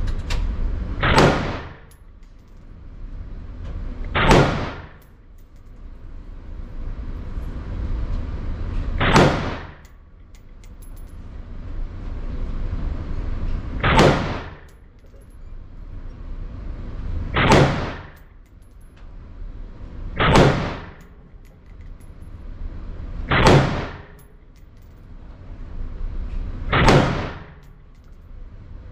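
Ruger AR-556 rifle in 5.56 NATO firing eight slow, aimed single shots, one every three to five seconds. The reports carry the hard echo of an enclosed indoor range.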